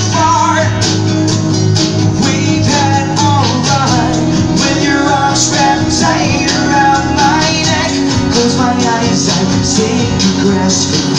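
Live acoustic band: a man singing over strummed acoustic guitars with a steady percussion beat.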